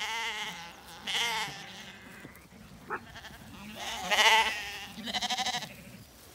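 Zwartbles sheep bleating, about four separate calls, the loudest pair near the end, one with a fast wavering tremble.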